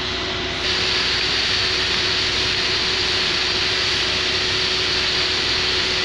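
Steady mechanical noise from a running machine: a constant hum under a loud hiss, which grows stronger and brighter about half a second in.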